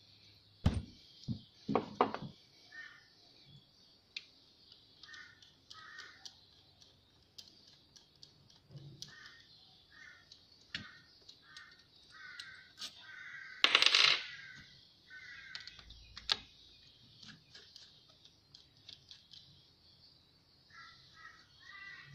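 Metal clinks, taps and knocks of an RD28 diesel injection pump and its small parts being handled and taken apart by hand, with a few sharp knocks in the first two seconds and a louder clatter about two-thirds of the way through. Short bird calls repeat in the background.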